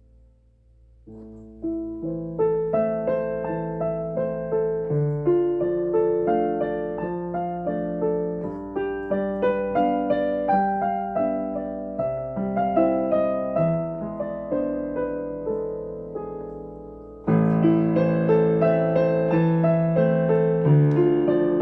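Gentle instrumental piano music, single notes with held chords; it starts softly after a brief quiet moment and becomes louder and fuller about two-thirds of the way through.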